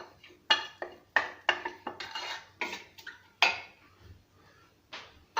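Metal utensil clinking and knocking against a metal cooking pot: a string of about eight to ten sharp, unevenly spaced clinks.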